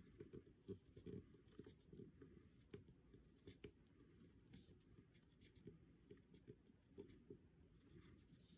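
Faint, irregular scratching and light tapping of a permanent marker drawing small circles on a plastic jar.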